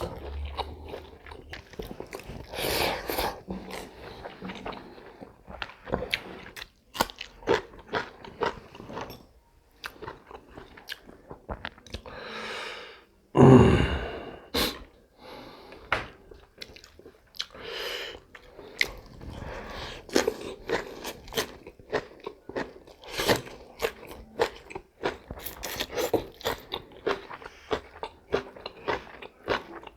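Close-miked mouth sounds of someone eating a home-raised chicken leg: chewing, biting and crunching at the meat and bone, with many small crisp crackles.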